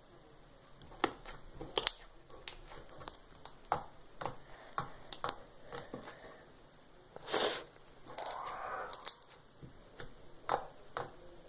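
Slime being squeezed and pressed by hand, making irregular sticky clicks and pops, with one louder crackling squelch about seven seconds in.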